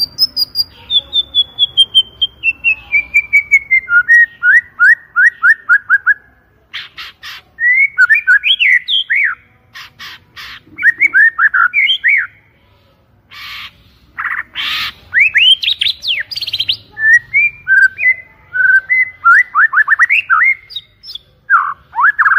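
White-rumped shama singing a long, loud song. It opens with a run of rapid repeated notes that slide steadily down in pitch over about six seconds, then moves into varied whistled phrases broken by several harsh, rasping notes.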